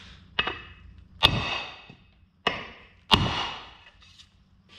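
A splitting maul striking the end of a wooden axe handle to seat the axe head while a wedge is being set. There are four blows; the second and fourth are heavy and ring briefly, and the first and third are lighter knocks.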